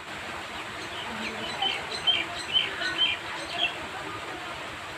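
Steady monsoon rain falling on trees, with a bird calling a run of about five short chirps in the middle.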